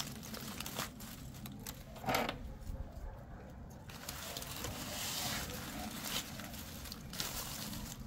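Baking paper and aluminium foil crinkling and rustling as a wrapped grilled turkey leg is handled and a knife cuts meat from the bone, with scattered clicks and a louder crackle about two seconds in, over a steady low rumble.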